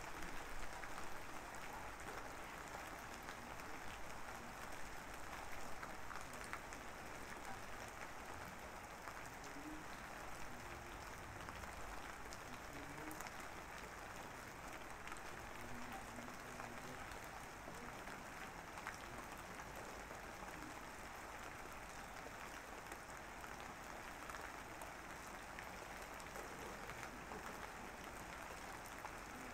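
Steady, even crackling patter of background noise, a rain-like ambience, quiet throughout.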